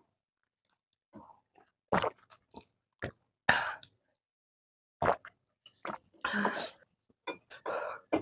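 Close-miked eating of spicy instant noodles: chewing and mouth noises come as scattered sharp clicks and short noisy bursts, with silent gaps between them.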